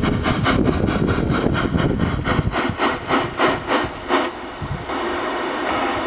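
Steam sound card of a radio-controlled G scale Aristocraft USRA Mallet locomotive chuffing, about five chuffs a second at first, slowing and stopping about four and a half seconds in as the locomotive comes to a stand. A steady hiss follows.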